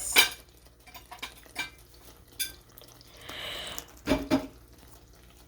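Kitchen dishes and utensils being handled. A sharp clatter comes near the start, then a few light clicks, a short scraping rustle about three seconds in, and two dull knocks soon after.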